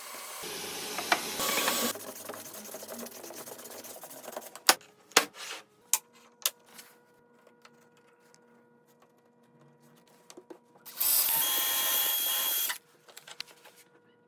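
Woodworking sounds: a power tool runs for about two seconds at the start, a few sharp knocks come a little after the middle, and a power tool, such as a drill or driver, runs again for under two seconds near the end.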